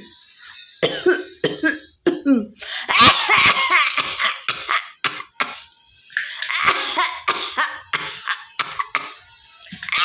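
A woman coughing and hawking: short sharp coughs, and two long, harsh throat-scraping rasps, each lasting a second or two.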